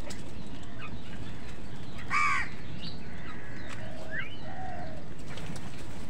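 House crows calling while feeding: one loud, harsh caw about two seconds in, then a few fainter, shorter calls later on, over a steady low background noise.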